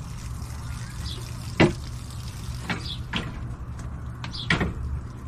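A few sharp knocks and clatters, the loudest about a second and a half in, as small potted succulents are handled and set on wire shelving, over a steady low hum.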